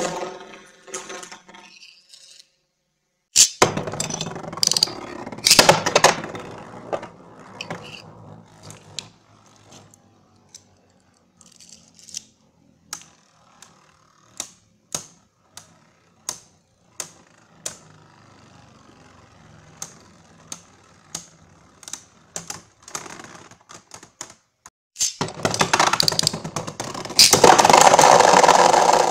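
Beyblade Burst spinning tops clashing in a plastic stadium: sharp plastic-and-metal clicks as they strike each other and the stadium wall, about one a second through the middle. Near the end comes a loud, dense run of rattling hits.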